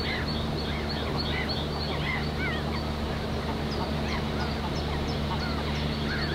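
A flock of waterfowl calling: many short whistled calls, each rising and falling, come several times a second over a steady low rumble.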